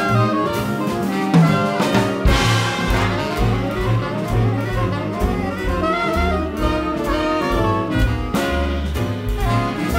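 Jazz big band playing a swing groove: saxophones, trumpets and trombones together over walking bass, piano, guitar and drums with cymbal strokes.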